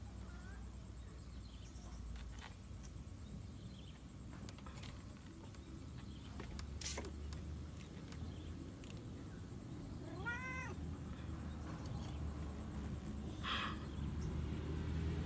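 Domestic cat meowing once, a short call that rises and falls in pitch, about ten seconds in, over a low steady background hum with a few faint clicks.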